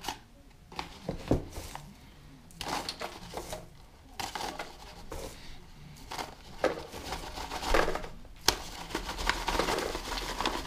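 Loose bedding material being poured and pushed through a funnel into a worm bin, in irregular rustling and scraping bursts with occasional sharp taps.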